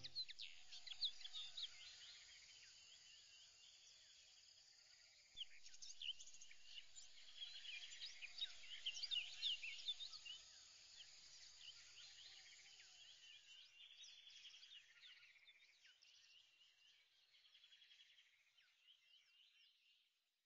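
Faint birdsong: many short chirps and whistled calls overlapping, growing louder about five seconds in and then fading out near the end.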